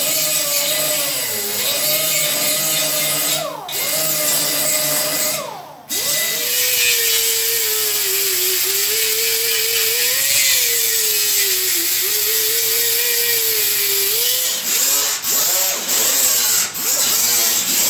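Handheld grinder running under load, its whine sagging and rising as pressure on the work changes, over a strong hiss. It spins down and restarts twice in the first six seconds, then is switched on and off several times in quick succession near the end.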